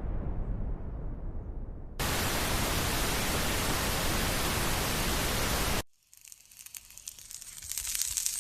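A low rumble fading out, then about four seconds of loud TV static between channels that starts and cuts off abruptly. After it, faint crackles and clicks build up.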